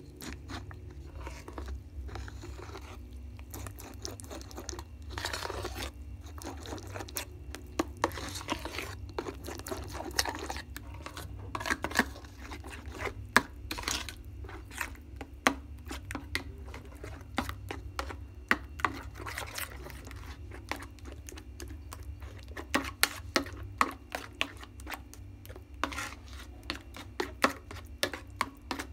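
Spoon stirring and scraping a thick paste of instant finger-millet porridge mix and water in a ceramic bowl, with many irregular sharp clinks and scrapes against the bowl.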